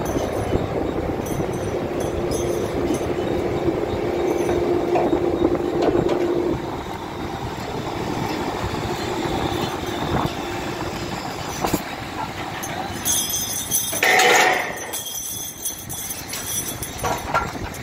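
Drilling rig machinery running steadily as the traveling block and top drive move through the derrick, with a steady hum for the first six seconds or so. A short, louder burst of sound comes about fourteen seconds in.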